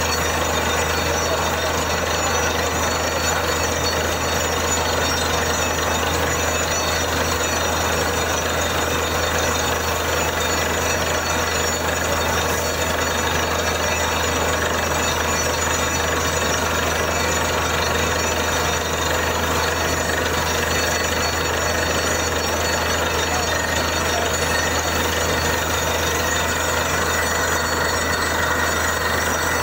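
Borewell drilling rig running steadily: a loud, constant machine noise with a steady low hum that does not change.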